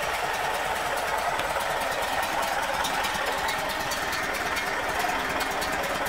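Air-cooled flat-four engine of a 1978 Volkswagen Brasília fitted with two carburettors, idling steadily, with a fast, light ticking over the running.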